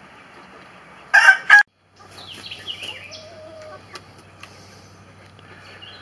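A loud chicken squawk, about half a second long with two peaks, that cuts off abruptly about a second and a half in. Afterwards only faint small-bird chirps and a low steady hum remain.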